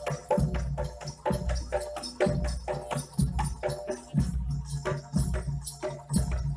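Gamelan-style jaranan accompaniment: drums and gongs beating a steady rhythm of about two strokes a second, with held metallic tones and bright jingling percussion on top.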